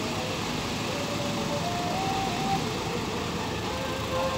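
Dump truck's diesel engine running steadily while the truck tips a load of dirt from its raised bed.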